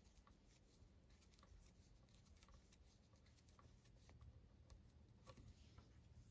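Near silence with faint, irregular small ticks of metal knitting needles as knit stitches are worked.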